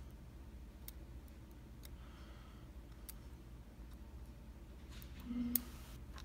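Small metal lock pins being handled and set down on a work surface: a few faint, scattered clicks and taps, the loudest near the end.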